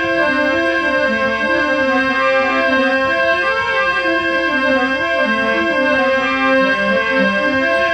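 Instrumental interlude of a Rajasthani folk song: a keyboard instrument plays a running melody of short notes over a steady held drone.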